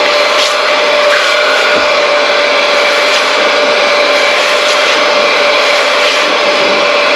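Vacuum motor running steadily, a constant whine over a rush of air, with a few faint clicks.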